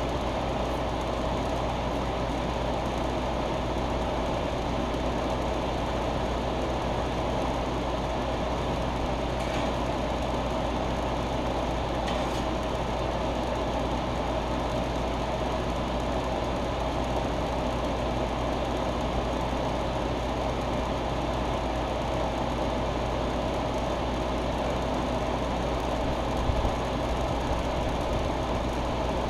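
Steady mechanical running noise with a low, constant hum, as from a motor or fan running without a break.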